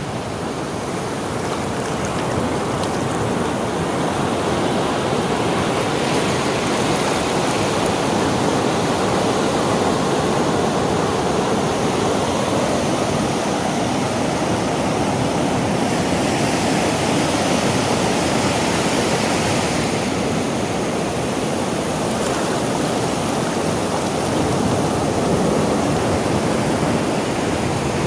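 Sea surf: a steady wash of breaking waves that swells slowly over the first few seconds and then holds.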